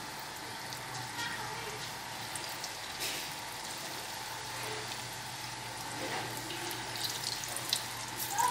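Pakora batter deep-frying in a pan of hot oil: a steady sizzle with scattered small crackles.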